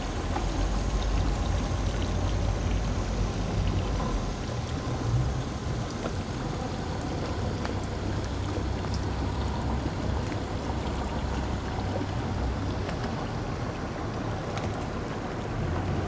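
Outboard boat motor idling at slow speed, a steady low rumble, with water noise over it.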